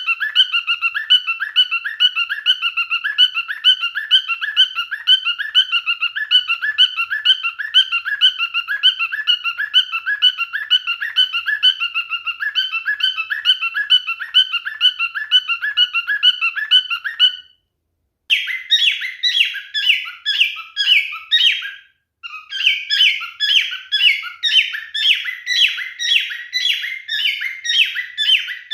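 Male cockatiel calling in fast, evenly repeated chirps, about four a second. After two abrupt breaks, at about 17 and 22 seconds in, come repeated downward-sliding calls at about three a second.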